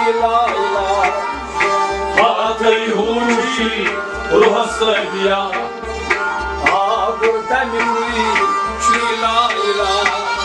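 Sufi devotional kalam being sung to a hand drum keeping a steady beat, with held instrumental notes under the voices.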